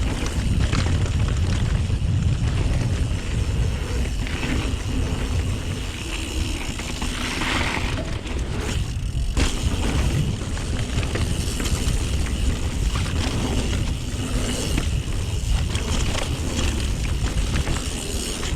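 Full-suspension mountain bike ridden down a dirt trail: wind buffeting the chest-mounted camera's microphone over the rumble of tyres on dirt and stones, with the bike rattling over bumps and a few harder knocks.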